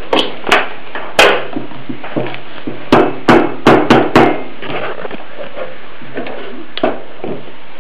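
Sharp knocks and taps, about nine in all, as a hand blender is lifted out of a beaker of thick sauce and knocked against the beaker and the table. The blender motor is off.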